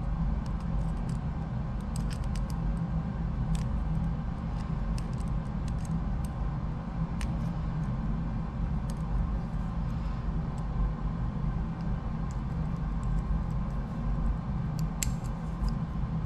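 Faint scattered clicks and ticks of a small flat screwdriver working at a plastic wiring connector, over a steady low hum.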